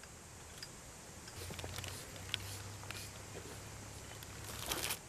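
Faint sounds of cooked rice being scooped with a wooden spoon and spread on a sheet of gim (dried seaweed), with a few light clicks and a brief rustle near the end, over a low hum.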